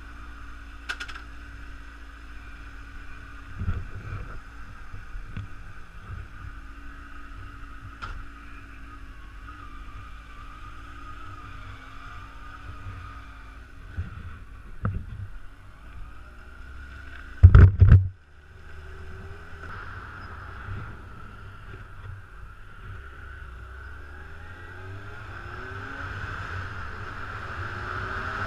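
Motorcycle engine running at low speed while the bike is ridden slowly. There are a few sharp clicks, and one loud knock about two-thirds of the way through. Near the end the engine and wind noise rise as the bike picks up speed.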